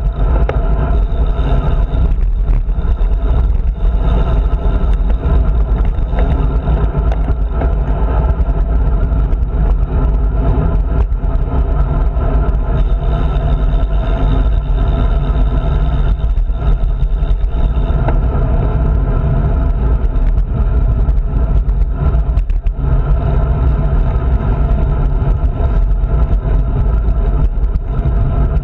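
Wind rushing over a handlebar-mounted GoPro's microphone as a road bike rides at speed, a steady loud low rumble mixed with road and tyre noise.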